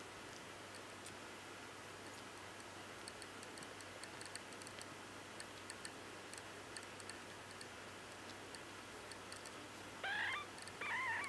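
Week-old Bengal kittens nursing, with faint scattered clicks of suckling. Near the end a kitten gives two short, high mews about a second apart, the cry of a blind newborn that has lost its teat.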